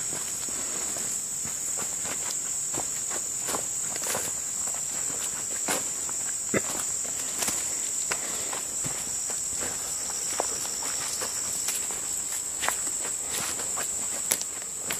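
Steady high-pitched insect chorus in summer woodland, with irregular footsteps crunching over leaf litter and twigs on the forest floor. A few sharper snaps stand out, about six and a half and fourteen seconds in.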